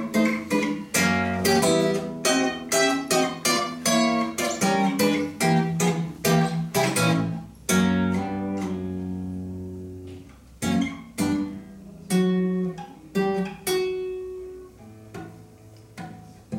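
Solo acoustic guitar played fingerstyle in an instrumental break of a song, with no singing. A quick run of picked notes for about the first eight seconds, then slower notes left to ring.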